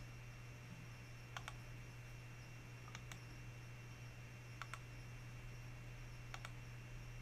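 Computer mouse clicking: four pairs of short clicks about a second and a half apart, over a low steady hum.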